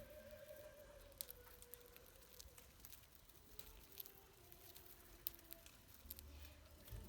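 Faint scattered light clicks and taps from pet budgerigars, irregular and a second or so apart.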